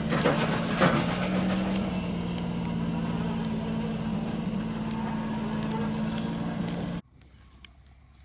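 An engine running steadily, with a few sharp clicks in the first second; it stops abruptly about seven seconds in, leaving a much quieter background.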